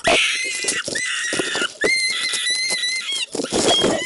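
Staged animal-attack sound effects: rough snarling and scuffling with high squeals, each held about a second, through the middle. This is the woken bear setting on the rabbit.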